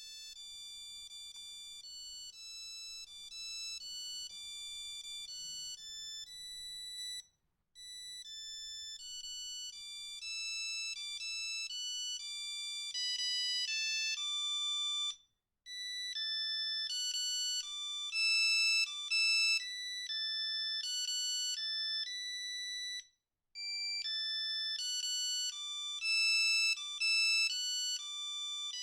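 Nokia 3210 mobile phone playing one of its built-in monophonic ringtones: a fast melody of beeping notes, one at a time. It stops for a moment three times, about every seven and a half seconds, and starts again.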